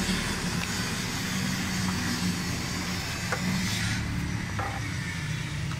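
An engine running steadily with a low hum under a broad hiss; the hiss drops off about four seconds in. A few light clicks come through during the hum.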